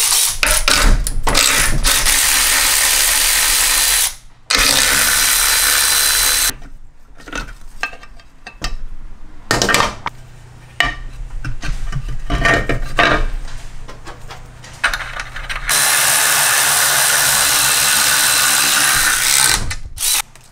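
Milwaukee M12 Fuel 3/8-inch cordless electric ratchet running in several bursts of two to four seconds, spinning nuts on a brake booster's studs, with clatter of the parts being handled between bursts.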